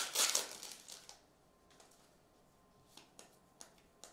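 Foil wrapper of a Panini basketball card pack crinkling as it is torn open, loudest in the first second, then a few light clicks of cards being handled.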